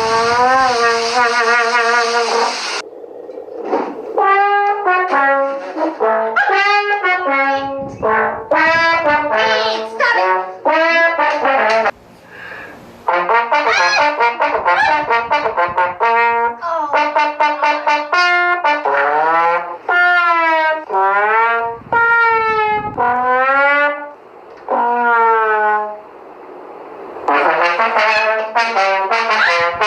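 A trumpet-like brass melody played in short phrases of held notes with a wide vibrato. There are brief breaks between the phrases.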